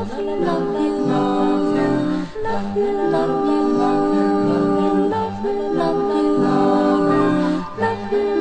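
Background song: several voices singing long, wordless held notes.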